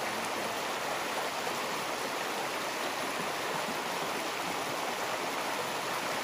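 Shallow stream running fast over rocks: a steady, even rush of water.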